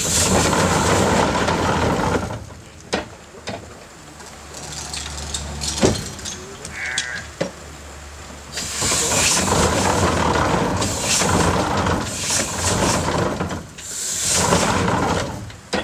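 Willamette 6x10 steam donkey engine working its winch in spells: loud steam exhaust and hiss as it runs the cable drum, stopping for several seconds in between, with a few sharp knocks in the pause.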